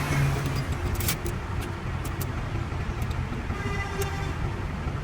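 A motor vehicle engine running steadily with a low rumble, with scattered light clicks and taps over it.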